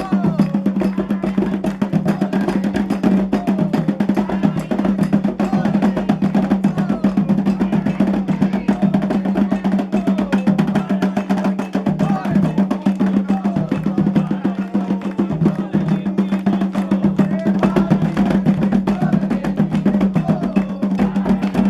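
Candomblé ritual music: atabaque hand drums keep a fast, dense beat with sharp wood-like percussion strokes, and voices sing over it.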